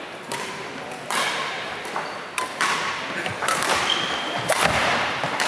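Badminton rally: sharp racket-on-shuttlecock hits about once a second, ringing in a large hall.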